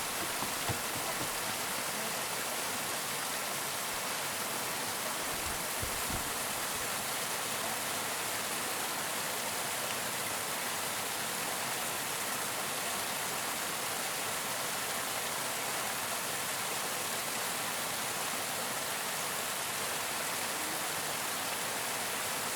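Waterfall: water falling and rushing in a steady, dense hiss. There are a couple of brief low thumps, about a second in and again about six seconds in.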